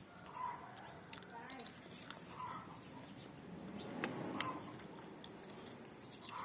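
Close-up eating sounds: chewing and wet mouth clicks and smacks, with scattered sharp little clicks.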